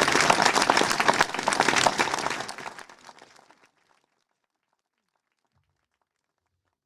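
Crowd applauding, a dense patter of many hands clapping that fades out from about two and a half seconds in, silent by about four seconds in.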